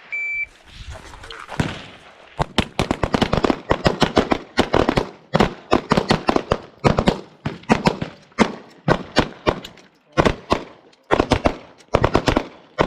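A shot-timer beep right at the start, then rapid pistol fire from several shooters at once, many shots overlapping, with a short lull about ten seconds in.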